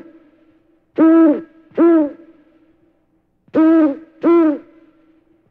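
Owl hooting: four hoots in two pairs, each about half a second long, holding one pitch and dropping off at the end.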